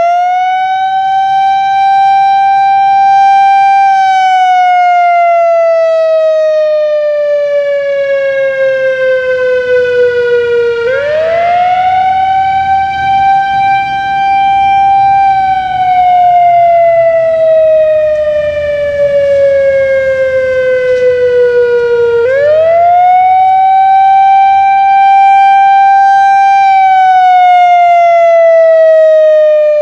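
Whelen WS-3000 electronic tornado siren on an analog controller sounding a wail test. The pitch climbs quickly, holds for a few seconds, then slides slowly down before climbing again. The cycle repeats about every eleven seconds.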